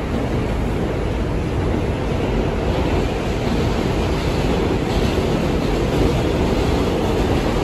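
Steady running noise of an R142 subway car in motion, heard from inside the car: wheels on the rails and the car's rumble, even and unbroken, a touch brighter from about three seconds in.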